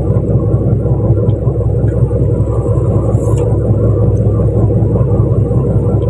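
Fishing boat's engine running steadily, a loud low rumble with a constant hum.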